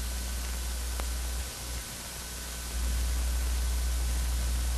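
Steady hiss and low hum of an old film soundtrack with no other sound. The hum dips for about a second midway, then comes back louder; there is a faint click about a second in.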